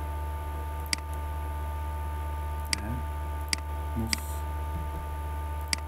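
Computer mouse button clicks, about five sharp single clicks at uneven intervals, over a steady electrical hum.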